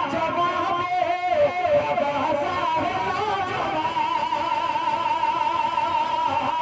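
Live naat music through a PA system: a melodic line that moves in steps, then about halfway in settles into a long held note with a strong wavering vibrato.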